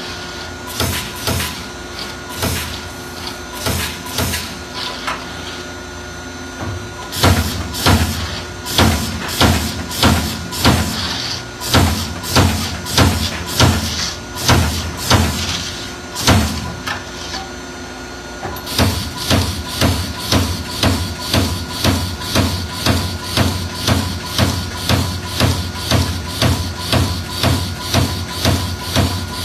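Amada AE-2510NT 22-ton CNC turret punch press punching sheet metal: a steady run of sharp punch strikes over a machine hum. The strikes come about twice a second, louder from about seven seconds in, then settle into a quicker, even rhythm of about three a second over the last ten seconds.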